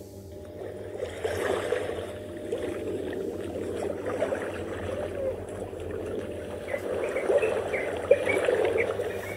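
Shallow seawater washing and trickling over wet sand at the water's edge, a continuous fizzing rustle. Short high chirps, from birds, come in over it in the second half.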